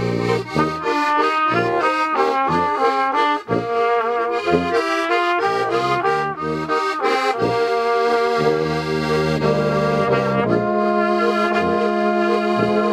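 Traditional folk brass music: a Steirische harmonika (diatonic button accordion) playing with trumpet, baritone horn and tuba. Short tuba bass notes keep the beat under the melody, and the band settles into a held chord near the end.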